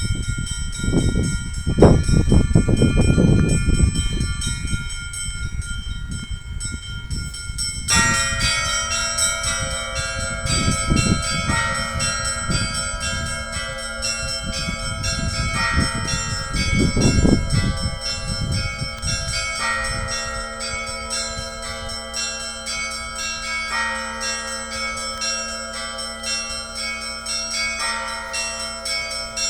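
Orthodox church bells ringing. At first a few bells sound, then from about eight seconds in a full peal sets in, with many small bells chiming rapidly over a heavier bell struck about every four seconds. Wind gusts buffet the microphone through the first two-thirds.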